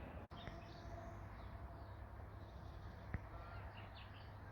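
Faint birds chirping in woodland over a low steady rumble, with a single sharp click about three seconds in.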